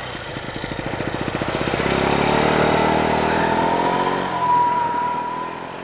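Small motor scooter's engine pulling away: a fast putter that revs up into a rising whine, then holds and fades as the scooter rides off.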